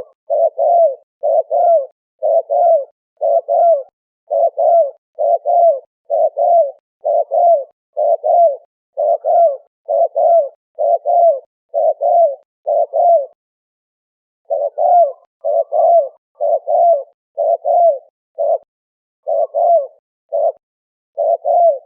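Turtle dove cooing over and over, short falling coos about one and a half a second, with a brief break about two-thirds of the way through.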